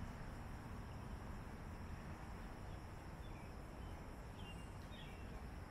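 Quiet outdoor background: a steady low rumble and hiss, with a few faint, short high chirps in the second half.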